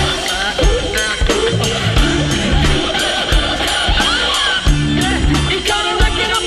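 Background music: a song with a steady drum beat and a stepping bass line.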